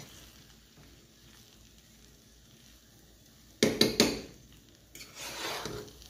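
A metal fork clinking and scraping against a metal saucepan as it stirs thick cooked quinoa and pumpkin. A few sharp clinks come just past halfway, then a short stretch of scraping and stirring near the end.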